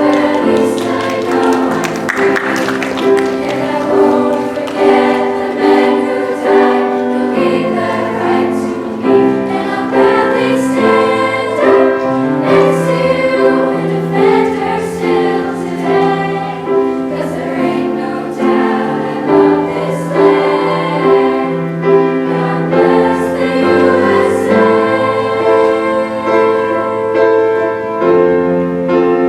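A choir singing a slow piece in sustained chords, with piano accompaniment.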